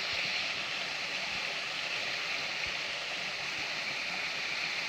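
Small woodland stream spilling over a beaver dam of logs: a steady rushing hiss of running water.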